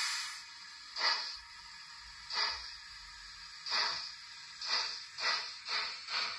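Sound decoder in a model Kerr Stuart 'Victory' tank engine, heard through the model's small speaker: a steam hiss dies away at the start, then exhaust chuffs begin slowly and quicken to about two a second as the locomotive pulls away.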